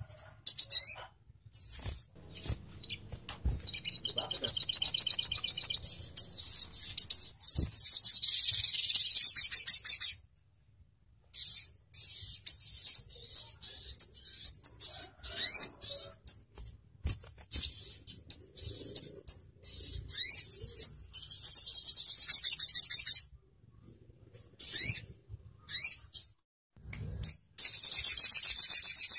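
Olive-backed sunbird (sogon ontong) singing: sharp, high chirps and quick rising notes, broken by four rapid trills lasting one to three seconds each, with short pauses between phrases.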